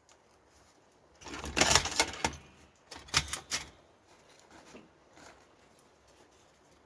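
Hand-operated mechanical cigarette tobacco rolling machine clacking as it is worked: two bursts of rapid rattling clicks, the first about a second in and the second about three seconds in, followed by a few faint ticks.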